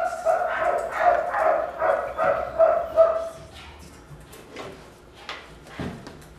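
A young German shepherd whining in a run of high-pitched pulses for about three and a half seconds. Scattered light clicks follow.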